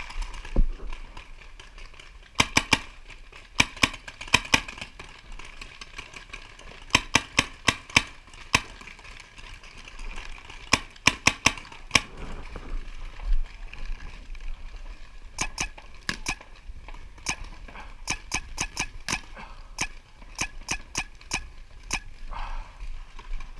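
Paintball markers firing in quick bursts of several sharp pops, with short pauses between bursts.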